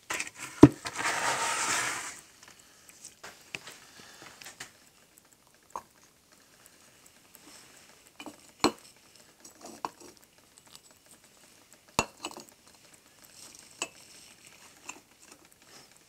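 Sporadic clinks and knocks of metal tools and scrap-iron weights being handled on a steel casting form and workbench. A brief scraping rustle comes about a second in. Three sharp knocks stand out: one just after the start, one a little past halfway and one about three-quarters through.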